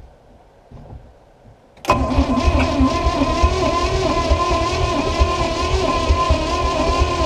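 Starter cranking the small-block Chevrolet 350 V8 inboard boat engine for about five seconds, starting about two seconds in, with a steady whine over a wavering, rhythmic churn. The engine doesn't catch; the owner suspects it is flooded from too much fuel poured into the carburettor.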